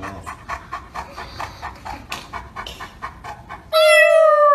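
A large white dog panting quickly and rhythmically, about six breaths a second. About three and a half seconds in, a puppy starts a loud, long, steady howl that falls slightly in pitch.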